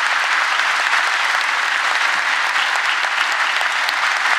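Steady applause from a large audience in a big hall, many people clapping at once.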